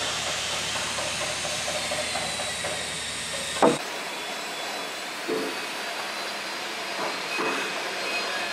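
Steady hiss of background ambience, cut off by a sharp click a little under halfway through. After that a quieter background with a few soft knocks, fitting a carpenter working on a timber beam by hand.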